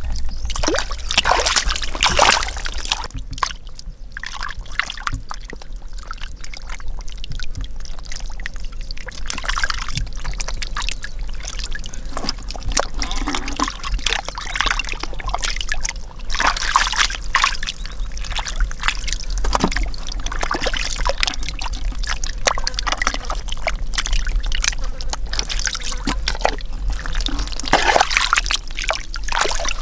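Hands sloshing and splashing through shallow muddy water and soft mud while groping for stranded fish. The small splashes and trickles are irregular and keep on throughout.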